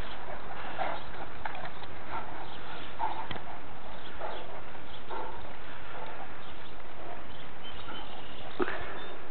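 Great Danes playing and chasing, making short irregular thuds and scuffs over a steady hiss, with one sharper knock near the end.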